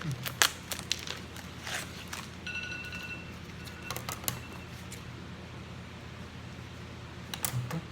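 Scattered clicks and crinkles of packaging and cards being handled while a box is unpacked, with a brief faint high tone about two and a half seconds in.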